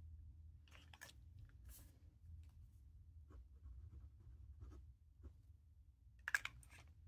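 Faint scratching of a broad-nib Franklin-Christoph Model 46 fountain pen writing on a paper swatch card, with a few soft paper and handling sounds. A short, louder clicking tap comes about six seconds in.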